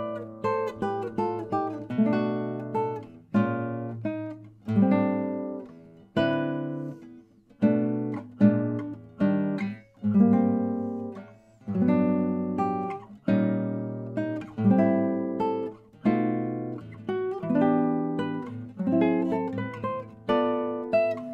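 Solo nylon-string classical guitar fingerpicking a slow jazz ballad in chord-melody style: chords plucked about once a second and left to ring and fade, a few rolled as quick arpeggios.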